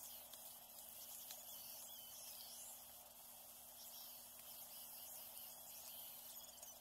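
Near silence: faint forest ambience with scattered thin, high bird chirps over a steady hiss.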